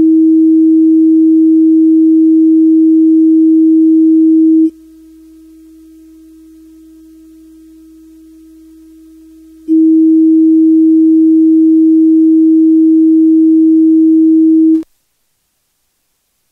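Speaker polarity test tone from a Maxell MD-CL MiniDisc lens-cleaner test disc: a steady low tone, loud for about five seconds, then much softer for about five seconds, then loud again before it stops. The soft middle part is the tone played out of phase, which should sound soft when the speaker wires are connected correctly.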